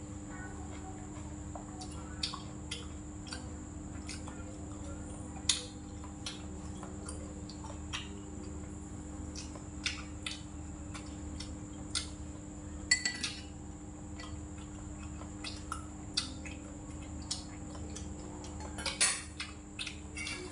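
Spoon and chopsticks clinking and scraping against a stainless steel rice bowl and ceramic bowls in scattered short knocks, a few louder, over a steady background hum.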